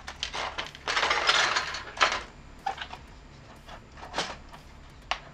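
Clattering and clicking of circuit boards and small parts being handled against a flat-screen TV's sheet-metal chassis, with a longer rattle about a second in and a few sharp clicks after.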